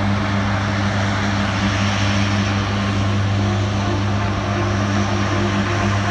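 Four-engine C-130J Super Hercules turboprops running steadily, a constant propeller hum with a dense rushing noise over it.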